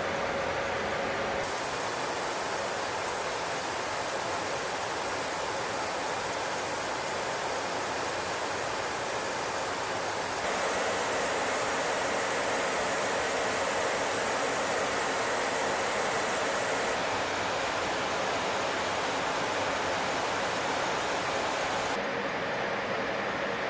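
Steady in-flight cockpit noise of a B-52H Stratofortress: an even rush of airflow and jet engines. Its tone changes abruptly a few times, and it gets slightly louder about ten seconds in.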